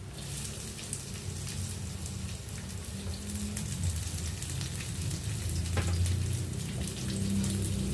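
Food sizzling and crackling in hot oil in a frying pan. The sizzle starts suddenly as the food goes into the oil and keeps up steadily.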